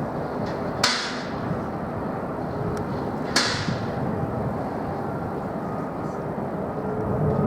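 Steady rumble of jet aircraft noise, with two sharp clicks, one about a second in and one about three and a half seconds in.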